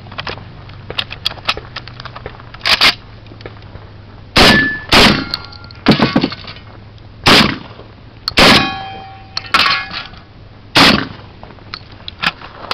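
A string of about eight irregularly spaced gunshots from a long gun fired at steel targets, with a short metallic ring after one of the shots from a hit on steel and fainter shots further off.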